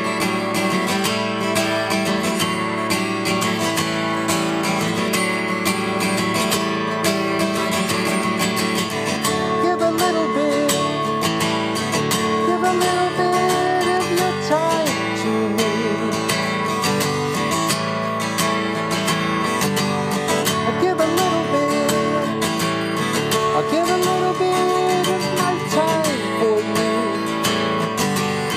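Cutaway acoustic guitar strummed steadily through a song, with a man's singing voice coming in over it at times.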